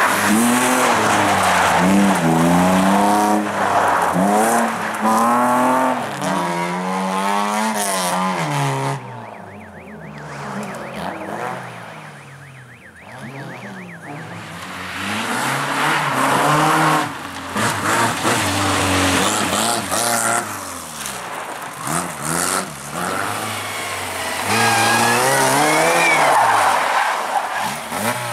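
Rally cars sliding through a gravel slalom turn one after another. First a BMW 3 Series saloon's engine revs hard up and down in quick swings. After a quieter stretch in the middle, Lada saloons rev through the turn.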